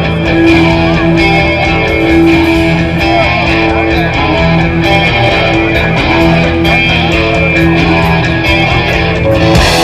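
Live rock band playing an instrumental passage led by electric guitar, with bass and a steady drum beat.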